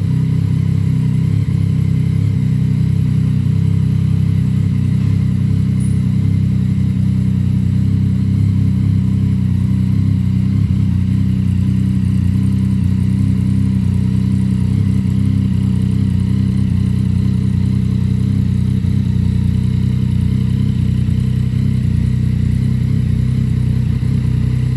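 2015 Yamaha MT-09's 847 cc inline three-cylinder engine idling steadily through a full Akrapovic exhaust system with the baffle removed.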